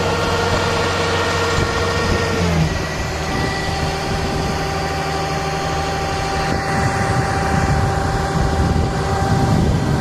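Kubota combine harvester's engine running steadily with its unloading auger turning as it pours threshed paddy into a carrying tank. The machine note shifts about two and a half seconds in.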